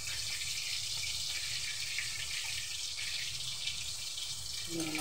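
Steady sizzling of breaded pork frying in hot oil.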